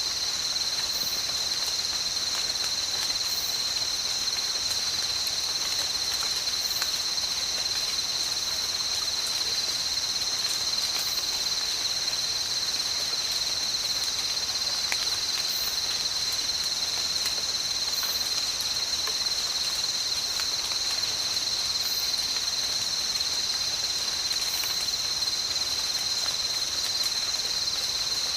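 Steady night chorus of insects such as crickets, an unbroken high-pitched trilling. Underneath is a soft hiss with scattered small ticks, as of light rain dripping, and a brief very high chirp every two to three seconds.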